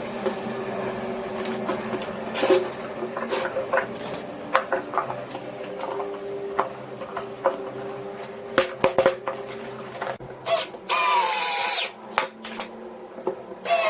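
Clicks and knocks of parts being handled, then a small power tool, such as an electric screwdriver or drill, running in two short whining bursts about a second long, each falling slightly in pitch.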